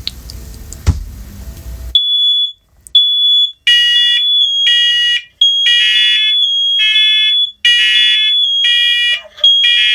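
Several interlinked First Alert Onelink smoke and carbon monoxide alarms sounding together on test, starting about two seconds in. Their piercing high beeps come in repeated blocks and overlap at slightly different pitches, because the units are not in sync.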